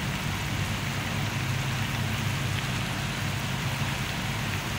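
Vegetables simmering in broth in an aluminium wok on a gas burner: a steady hiss over a low, even rumble. The broth has come to the boil.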